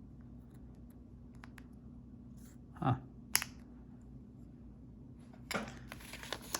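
Small plastic clicks and taps as the key fob's shell pieces are handled and fitted together, over a steady low hum. Near the end, paper rustling starts.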